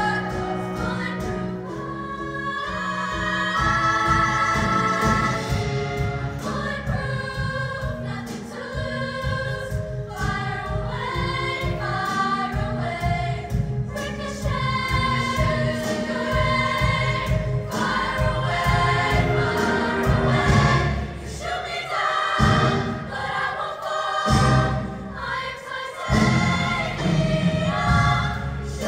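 Show choir singing an upbeat number in full ensemble over instrumental accompaniment with a steady beat.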